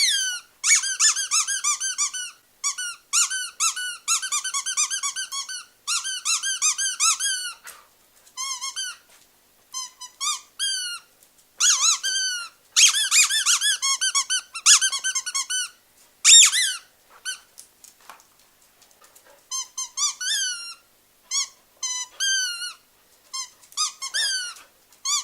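Squeaky dog toy squeezed over and over: fast runs of high squeaks, each rising and falling in pitch, broken by short pauses.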